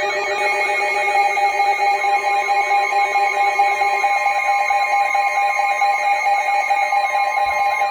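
Emergency Alert System attention signal: several steady electronic tones sounding together, with a warbling tone over them. A lower tone drops out about four seconds in, while the rest carries on without a break.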